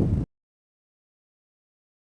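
Wind buffeting the microphone for a moment, then the sound cuts off abruptly to dead digital silence a quarter second in.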